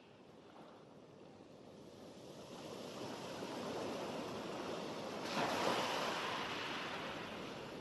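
Sea waves washing in: the surf swells over several seconds, is loudest as a wave breaks about five and a half seconds in, then slowly eases off.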